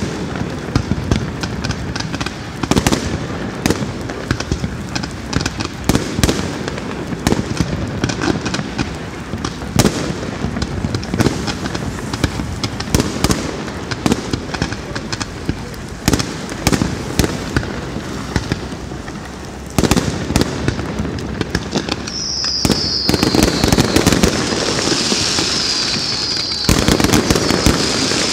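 Fireworks display: a steady run of bangs from bursting shells with crackle between them. In the last six seconds the barrage thickens and a string of falling whistles from whistling fireworks joins in.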